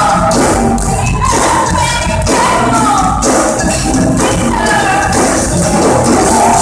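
A woman singing loudly into a handheld microphone, a sung melody with gliding, held notes.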